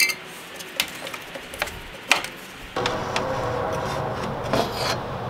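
A few sharp, light clicks and taps of parts being handled at the radiator and fan shroud. About three seconds in, a steady background noise with a faint hum takes over.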